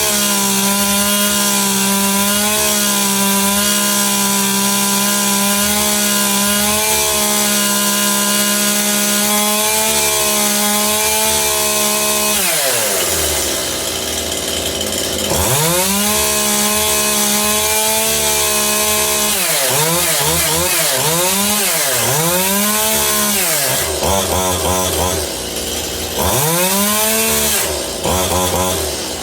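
Stihl MS181 two-stroke chainsaw engine running at high revs, held steady, then dipping briefly and picking back up. Near the end the throttle is blipped over and over, so the engine repeatedly drops and revs back up. It has just come to life on old fuel that had gummed up the carburettor.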